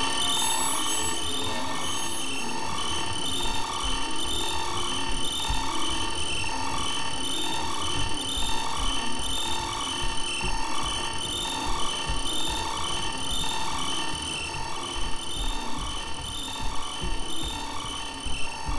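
Experimental electronic dark-ambient soundtrack: a repeating pattern of pulsing tones over an irregular mechanical clicking and ratcheting texture.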